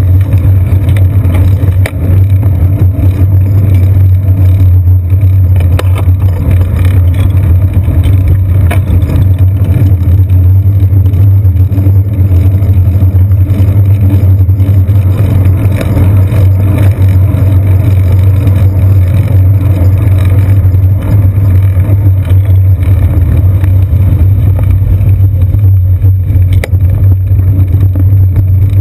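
Loud, steady low rumble of wind and road vibration on a seat-post-mounted GoPro Hero 2 on a moving bicycle, with a few faint knocks from bumps in the road.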